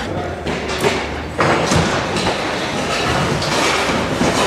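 Steel grandstand frames and seating panels being taken apart and handled: a couple of sharp knocks, then a continuous rattling metal clatter.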